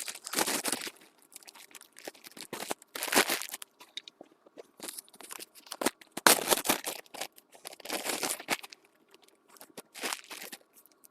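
Plastic bags crinkling and rustling as they are handled, in irregular bursts with short pauses between them.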